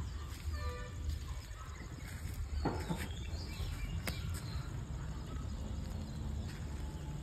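Rural outdoor ambience: a steady low rumble, with faint distant voices in the first second and a short rising-and-falling call about two and a half seconds in.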